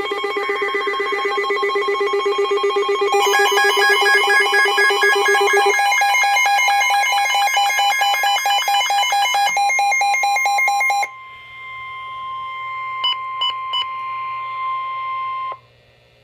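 Emergency alert tones for a flood warning: loud pulsing electronic alarm tones that change pattern about three seconds in and again near ten seconds, then the steady single warning alarm tone of NOAA Weather Radio with three short beeps over it. The tone cuts off about a second before the end.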